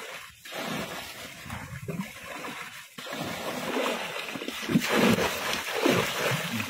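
Water splashing and gushing as muddy pond water is scooped up in plastic buckets and poured out, pour after pour, while a pool is bailed dry by hand to expose the fish. It grows louder in the second half.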